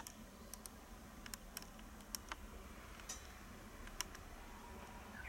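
Faint, irregular little clicks of cat litter granules shifting under a cat standing in a litter box, about nine sharp ticks scattered over a few seconds.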